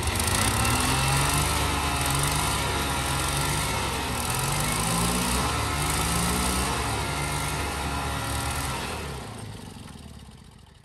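Sears GT/18 lawn tractor engine running hard with its pitch wavering, over a steady hiss of the rear tyres spinning on asphalt in a burnout. The sound fades away over the last two seconds.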